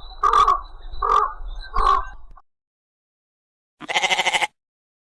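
An animal's loud, harsh calls, repeated about once a second, stopping about two and a half seconds in; after a pause, one short, buzzy call.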